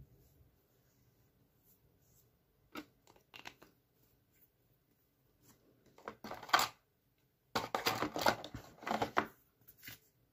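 Handling noise of makeup products being picked up and opened close to the microphone: a few faint clicks, then two louder stretches of scraping and rattling in the second half.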